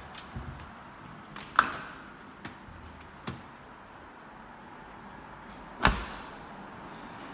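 Kitchen cabinet door and dishwasher door being opened and shut: a few knocks and latch clicks, the loudest near the end with a short ring after it.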